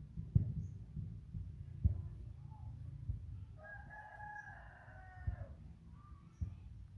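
A rooster crows once, a pitched call of about two seconds near the middle, over low rustling with a few dull thumps, the loudest just after the start.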